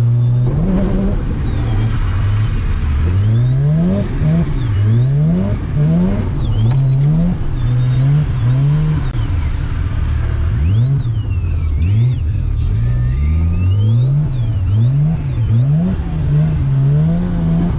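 Mazda RX-7 FC's turbocharged 13B rotary engine revved hard, its pitch climbing and dropping over and over, roughly once a second, with a higher whine rising and falling alongside, as when the car is being drifted.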